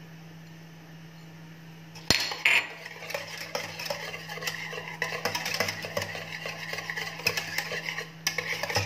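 Wire balloon whisk beating thick cooked milk cream in a stainless steel saucepan, the wires clicking and scraping rapidly against the pot. The whisking starts about two seconds in with a sharp knock.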